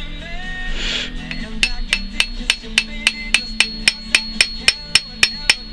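Rapid light hammer taps, about three or four a second, beginning about one and a half seconds in, knocking a glued 4 mm rivet into its hole through a catapult's handle scales. Music plays underneath.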